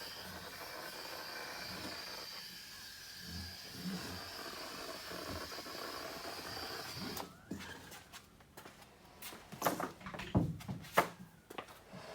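Steady hiss of compressed air that cuts off about seven seconds in, followed by scattered clicks and knocks.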